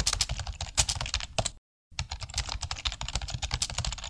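Rapid keyboard typing, many keystroke clicks a second, broken by a short dead gap about a second and a half in.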